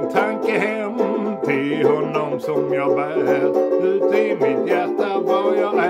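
Harmonica playing a wavering melody over a strummed banjo accompaniment.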